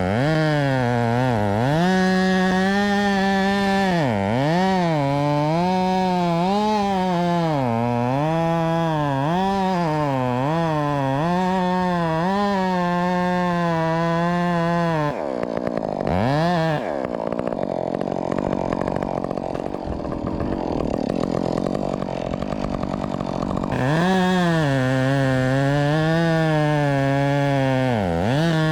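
Modified Husqvarna 562XP 60cc chainsaw running at high revs while cutting wood, its engine pitch repeatedly dipping and recovering under load. For several seconds in the middle the steady whine turns rougher and noisier before the pitch returns.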